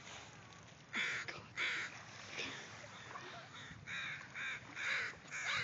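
Crows cawing: a series of short, harsh caws, two about a second in and a quick run of four near the end.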